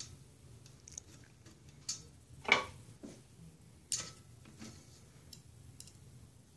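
Scattered small metal clicks and taps as a sheet-metal bracket is lined up on a printer carriage and a screw is fitted with a hand screwdriver; the sharpest tap comes about two and a half seconds in.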